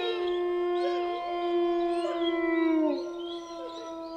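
Wolf howling: long, held howls that slide down in pitch and fade about three seconds in.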